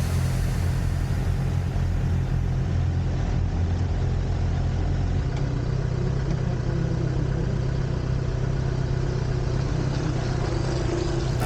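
A motor vehicle's engine running steadily with a low drone; its note shifts slightly about five seconds in.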